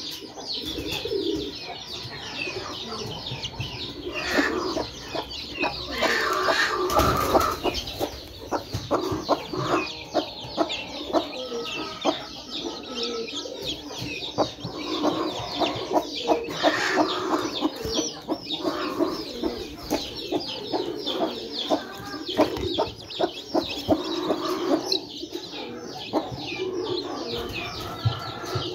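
Newly hatched chicks peeping constantly, many short high chirps overlapping, over the low clucking of the broody hen brooding them. A louder burst of noise comes about seven seconds in.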